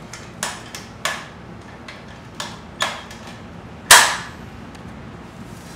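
A handful of sharp knocks and bangs at uneven intervals, the loudest about four seconds in with a brief ring after it.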